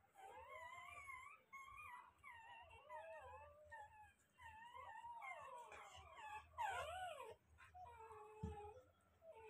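Newborn Rottweiler puppies whimpering and squeaking: many short, wavering high cries, several overlapping at once. One bump about eight and a half seconds in.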